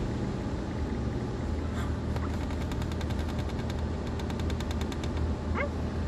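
A cockatoo tapping the car's side window with its beak in two quick runs of clicks, about ten a second, around the middle, over the steady low hum of the carwash heard from inside the car. A short squeak near the end.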